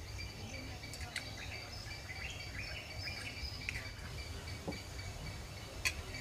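Rural outdoor ambience: insects keep up a steady high trill while birds give short chirps throughout. There are two sharp clicks, one about a second in and a louder one near the end.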